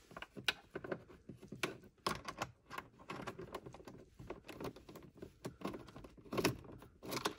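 Irregular light clicks and taps, with a few louder knocks, from a screwdriver and a loosening screw working against the plastic glove box as the last glove box screw is backed out.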